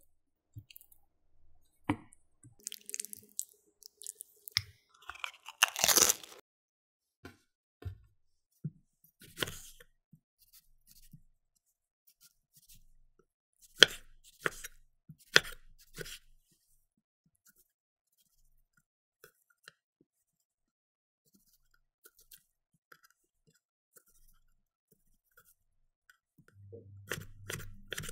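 Chef's knife cutting a tomato on a wooden cutting board: single knocks of the blade on the board with pauses between them, then a quick run of slicing strokes near the end. A brief loud crackle comes about six seconds in.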